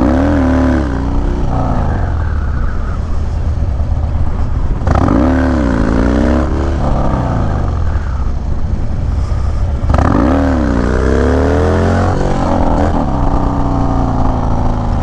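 Harley-Davidson Dyna V-twin through a Bassani Road Rage 3 exhaust, ridden with the throttle opened and rolled off: the engine note climbs and falls three times, about five seconds apart, over a steady rush of wind.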